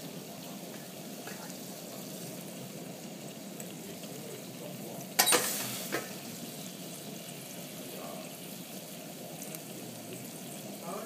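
Sauce sizzling steadily in a sauté pan on a tableside burner during crêpes Suzette service. A sharp clink about five seconds in, with a smaller one a little under a second later.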